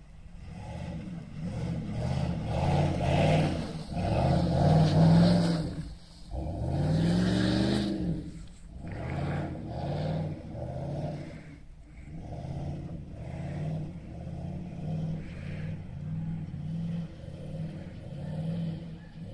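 1996 Jeep Grand Cherokee's 5.2-litre V8, breathing through a Flowmaster Super 44 muffler and a MagnaFlow high-flow cat, revving hard again and again while drifting on snow. One long rev climbs and falls about six seconds in, followed by a string of shorter revs at about one a second.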